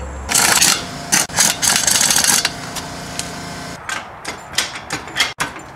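Lug nuts being run onto the wheel studs with hand tools. There are loud bursts of metallic rattling and whirring, then a run of sharp clicks lasting about a second and a half near the end.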